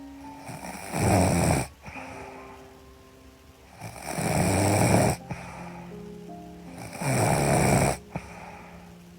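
A woman snoring in her sleep: three loud snores about three seconds apart, each under about a second and a half long. Soft sustained music notes are held in the gaps between them.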